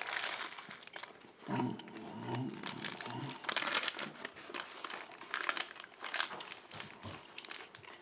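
Döner kebab paper wrapper crinkling in the hands while a person bites into and chews a döner, with irregular crackles and crunches throughout and a short muffled hum from the eater about one and a half seconds in.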